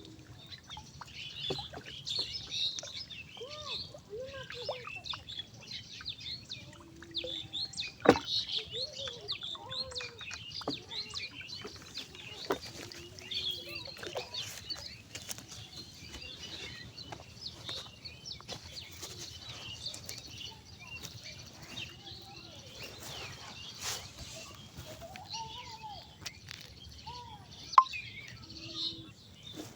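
Small birds chirping and twittering throughout, with scattered sharp clicks or knocks, the loudest about eight seconds in.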